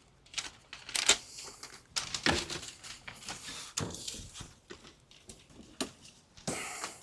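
Scattered clicks and knocks of hard parts being handled: about six sharp ones at uneven intervals.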